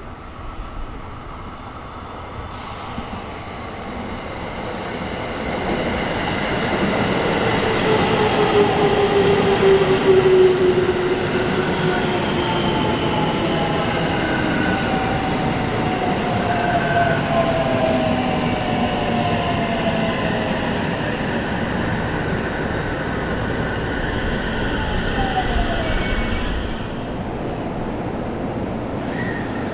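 JR Central 313 series electric train decelerating into the station, its Toshiba VVVF inverter and traction motors whining in several tones that fall steadily in pitch over the rumble of the wheels. The sound swells over the first ten seconds and drops back shortly before the end as the train slows.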